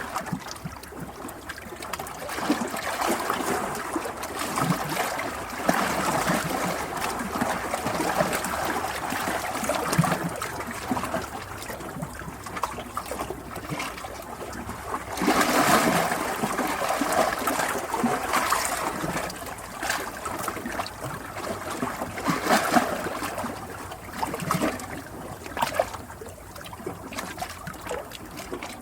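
Water trickling and splashing in a continuous, uneven flow that swells louder for a few seconds about halfway through.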